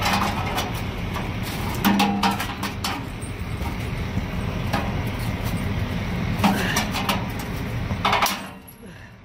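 A wrench working on a semi truck's exhaust tip and bracket: several short bursts of metal clinking and scraping, over a steady low vehicle rumble. The sounds fall away shortly before the end.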